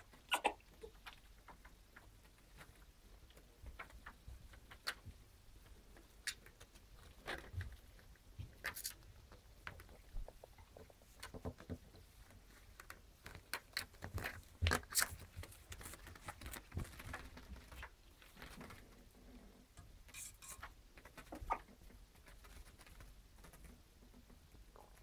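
Baby squirrels' claws scratching and pattering on a woven blanket as they climb, in irregular clicks and scrapes.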